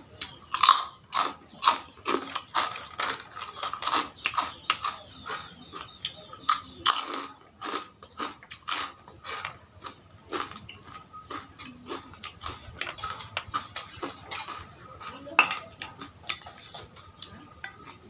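Close-up mukbang eating of noodle soup: a person chewing big mouthfuls, heard as a dense, irregular run of sharp clicks and smacks.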